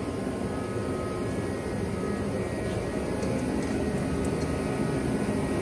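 A steady, even mechanical drone with no clear rhythm, holding at one level throughout.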